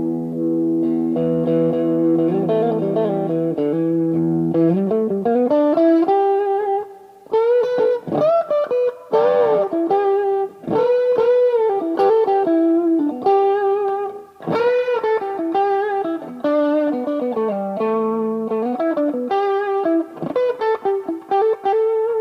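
Greco WS-STD electric guitar played through an amp. A held chord rings for the first few seconds, then a single-note lead line follows, with string bends and vibrato in short phrases.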